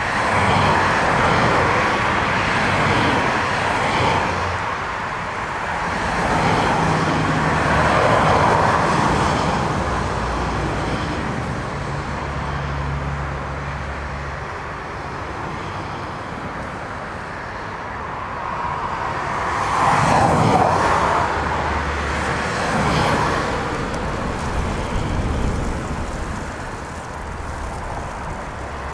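Distant jet engines of a taxiing airliner heard through gusting storm wind: a steady rushing noise that swells and fades with the gusts, loudest about two-thirds of the way through, over a low hum.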